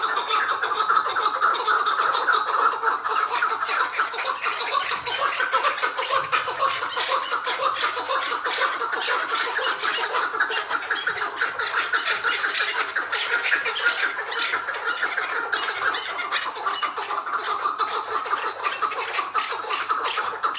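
Caged chukar partridges giving the continuous, rapid chattering call that Turkish keepers call 'hıngırma'.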